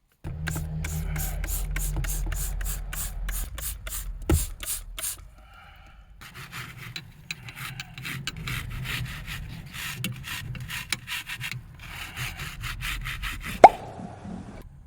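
Rhythmic scrubbing or rubbing strokes, about four a second, with a steady low hum underneath. They pause briefly about five seconds in, and there is a sharp knock near the end.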